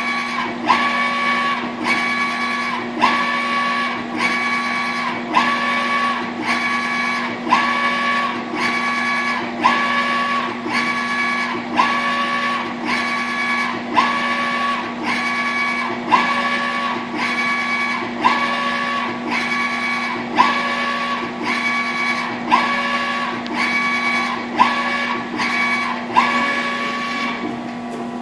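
Direct-to-garment printer printing a T-shirt: the print-head carriage sweeps back and forth about once a second, each pass a motor whine that opens with a click, over a steady hum. The passes stop shortly before the end as the print finishes.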